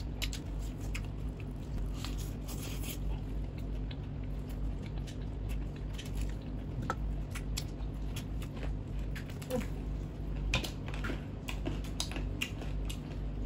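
Close-up eating sounds: chewing and biting fried chicken and eating rice by hand, with scattered small clicks and smacks over a steady low hum.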